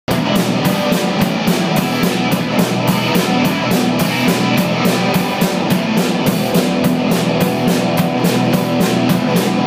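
Live rock band playing without vocals: electric guitar, electric bass and drum kit, with a fast, steady cymbal beat.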